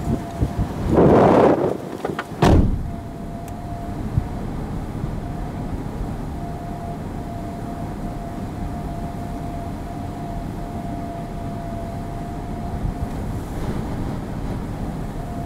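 Vehicles passing on the road: a loud whoosh about a second in and a shorter, sharper one just after two seconds. Then steady wind and road noise with a faint, thin whine that comes and goes.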